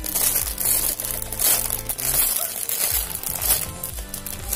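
Clear plastic packaging bag crinkling as a squishy toy sealed inside it is squeezed and handled, over background music with a steady beat.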